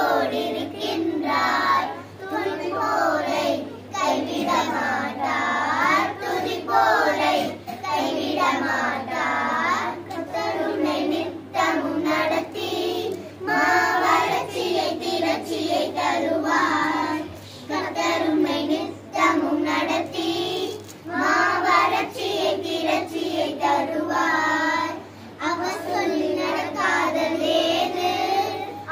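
A group of children singing together, in phrases of a couple of seconds with brief pauses between.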